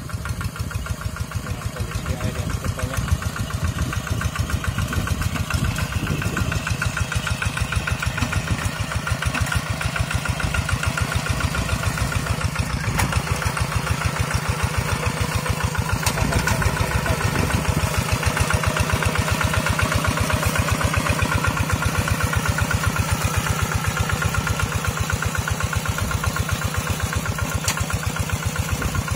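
Quick G1000 two-wheel hand tractor's single-cylinder diesel engine chugging steadily under load as the tractor pulls a moldboard plough through wet paddy mud.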